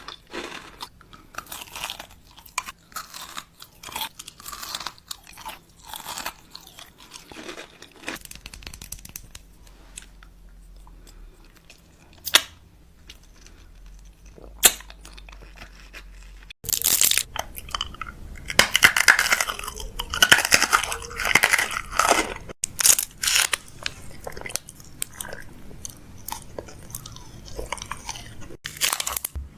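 Crunching and chewing in many short, crackly bites, heard across several separate takes that begin and end abruptly. The densest, loudest crunching comes in the second half.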